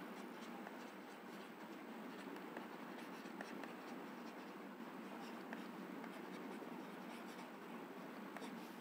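Stylus nib scratching and tapping on a pen tablet while words are handwritten: many faint, short scratches over a steady low room hiss.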